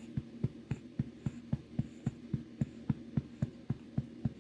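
Steady rhythmic patting on a baby's back to bring up a burp, about three to four soft pats a second, over a constant low hum.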